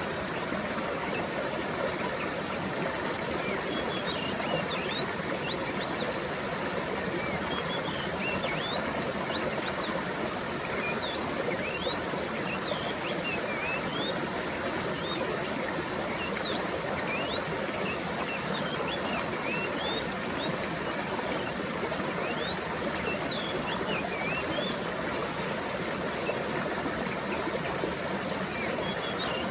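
Mountain stream flowing steadily, with many small birds chirping throughout in short, quick rising and falling notes.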